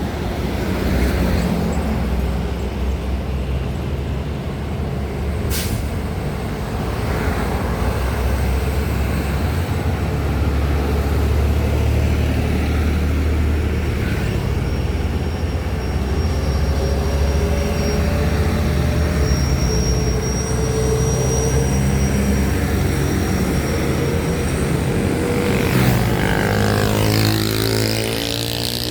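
Heavy diesel trucks running on an uphill climb, a steady low engine rumble. A sharp click comes about six seconds in, a thin high whine holds for several seconds midway, and near the end an engine revs up in rising pitch.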